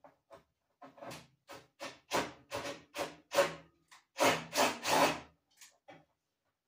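Rhythmic back-and-forth hand strokes on wood, about three a second, in two runs with a short pause between them.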